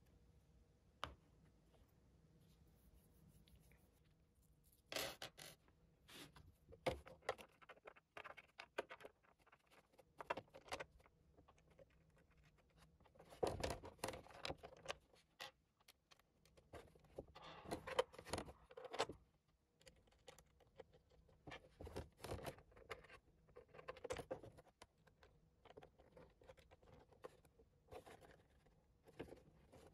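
Intermittent small taps, clicks and scrapes of a plastic computer fan being handled and fitted onto a thin MDF panel, with a few denser clusters of rattling handling noise.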